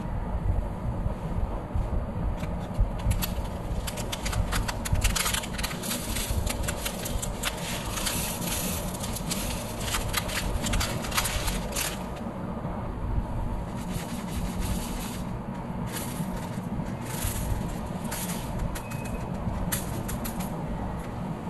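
Small resin diamond-painting drills pouring and rattling into a plastic sorting tray, a dense patter of tiny clicks that comes in two spells as the drills are tipped in and the tray is shaken, over a steady low rumble.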